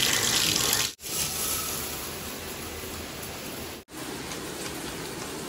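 Water running in a bathtub: the tub spout pours loudly for about a second, then after a cut comes a steadier, softer rush of running water.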